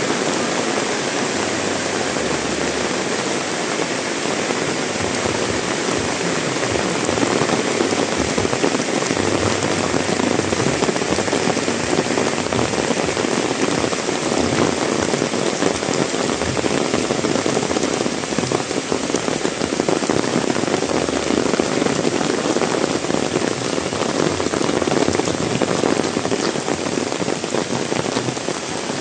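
Heavy rain falling steadily, a dense, even patter of drops on wet surfaces.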